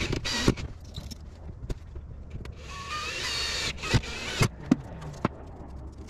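Cordless drill/driver whirring in two runs against the van's metal window frame: a brief one at the start and a longer one of about a second midway, its pitch wavering and rising. Sharp clicks and taps of the tool and screws being handled come between.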